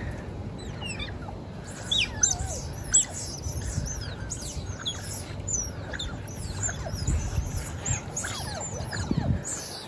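Smooth-coated otters chirping and squeaking: many short, high-pitched calls, mostly falling in pitch, coming thick and fast from about a second and a half in.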